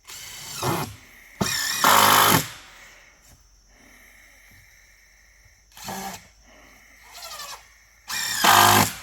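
Power drill driving screws into the wooden track boards of a bridge, in about five short bursts of the motor spinning up and stopping; the loudest come about two seconds in and near the end.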